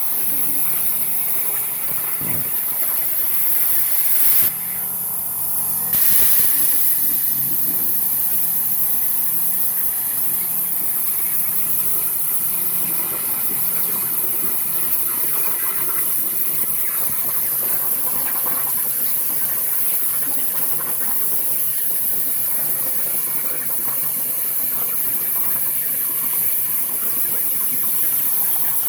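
CNC plasma torch hissing steadily as it cuts cold rolled steel plate, with a break of about a second and a half around four and a half seconds in before the hiss resumes.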